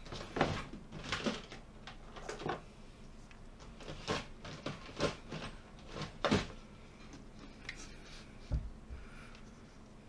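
Handling knocks and clicks on a workbench mat, a sharp tap roughly every second for the first six seconds or so. About eight and a half seconds in comes a dull low thump as the reassembled graphics card is turned onto its edge.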